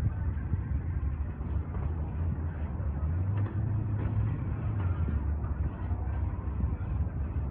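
Steady low rumble of distant racing engines from a race track and drag strip beside the airfield, over outdoor noise.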